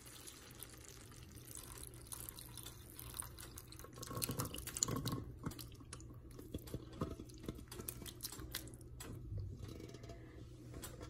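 Cooked fava beans and their broth poured into a skillet of shrimp in broth: faint, irregular wet splashing and plopping, busiest about four to five seconds in and again a little later.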